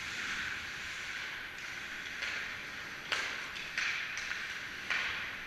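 Ice hockey game sounds: a steady high hiss of the rink and skates on ice, with sharp clacks of sticks and puck about three seconds in, again a little later, and once more near five seconds.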